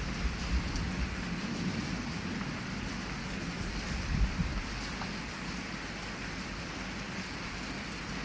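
Heavy rain falling steadily, with a low rumble of thunder underneath that swells briefly about four seconds in.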